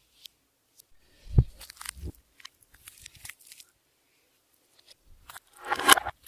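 Clear slime being squished and worked by hand, with scattered crackly clicks and pops. There is a low thump about a second and a half in, and a longer, louder crackling squish near the end.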